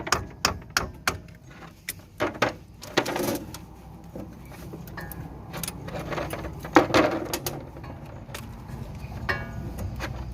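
Sharp metallic clicks and clanks of hand tools and parts while a car's outer CV joint and its boot are worked loose at the wheel: a quick run of clicks at first, then rattling handling noise and a louder knock about two-thirds of the way through.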